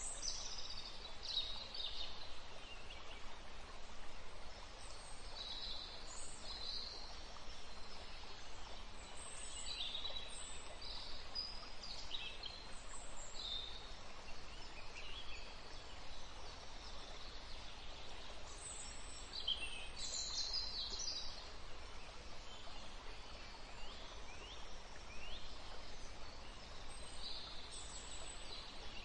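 Scattered short, high bird chirps over a steady hiss.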